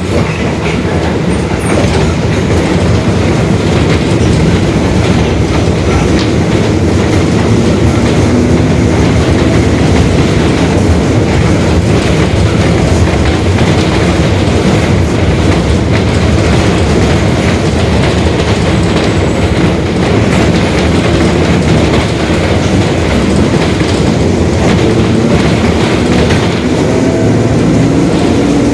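Mercedes-Benz OF-1721 Bluetec 5 city bus running on the road, its diesel engine and drivetrain going steadily with the rear differential growling. A pitched whine rises briefly a few times, and faint rattles run through it.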